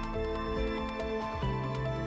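Soft instrumental background music with held notes that change every half second or so, over a light regular tick.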